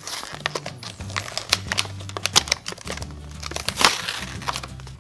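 Clear plastic toy packaging crinkling and crackling in quick irregular bursts as hands pull it open, with background music underneath.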